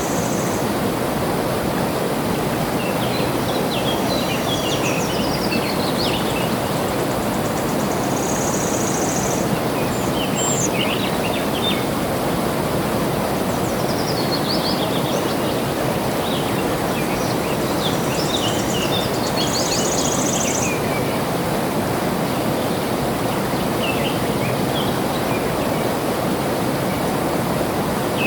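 Steady rush of flowing water, with birds chirping and twittering above it in several short bouts. A brief high buzz comes three times, near the start, about nine seconds in and about twenty seconds in.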